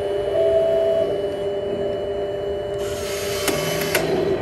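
Heng Long 1/16 Leopard 2A6 RC tank running: a steady electronic engine hum from its sound unit with a mechanical whir as the turret traverses. About three seconds in comes a hissing burst lasting about a second with two sharp clicks, as the barrel puffs smoke.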